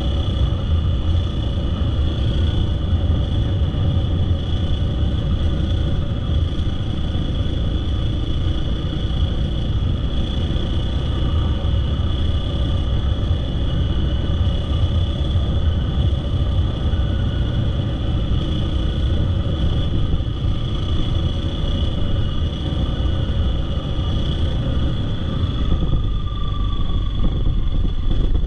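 Dirt bike engine running steadily while riding along a gravel road, with a heavy low rumble underneath.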